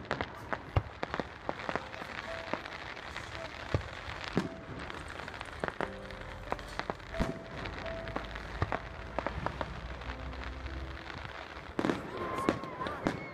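Fireworks going off at a display: many sharp bangs and crackles at irregular intervals, over a steady haze of noise.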